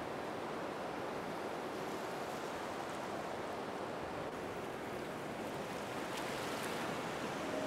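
Steady rush of sea water and surf, an even hiss without distinct breaks.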